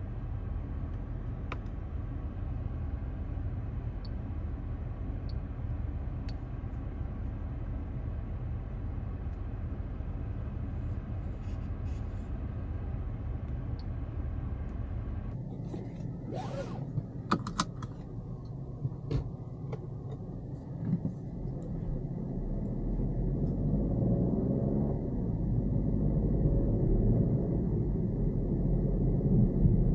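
Peugeot 408's small three-cylinder petrol engine heard inside the cabin: a steady low rumble at first, then after a cut a few sharp clicks, and the engine and road rumble rising from about two-thirds of the way in as the car pulls away and gathers speed.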